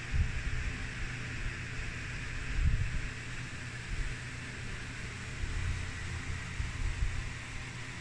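Steady background hiss with several low bumps and rumbles from the phone being handled and moved.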